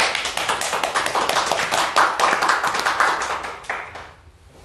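Applause from a small group of people, a dense patter of hand claps that dies away about four seconds in.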